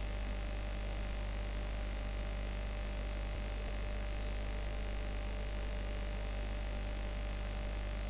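Steady electrical mains hum with a faint even hiss, picked up by the recording, with no other sound.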